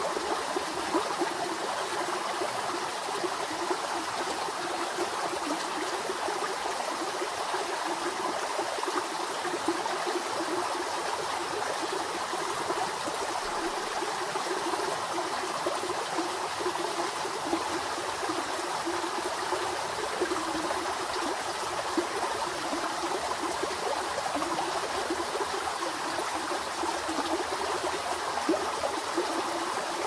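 Shallow, rocky stream flowing over and between stones, a steady sound of running water.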